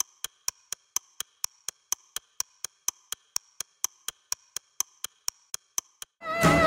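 Steady, clock-like ticking, about four ticks a second, over a faint high steady tone. Music comes in again near the end.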